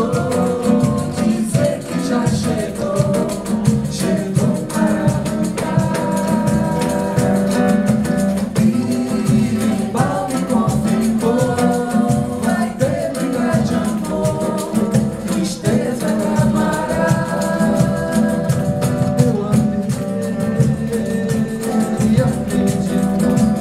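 Samba group performing live: women's voices singing over acoustic guitar, cavaquinho and hand percussion keeping a steady, busy beat.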